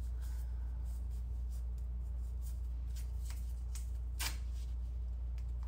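Soft rustles and clicks of fingers handling and smoothing a paper-backed wax strip on the face, with one sharper rustle about four seconds in, over a steady low hum.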